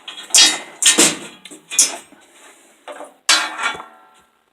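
Small steel tools and rod being handled and knocked together, a handful of sharp metal clinks and clatters with brief ringing.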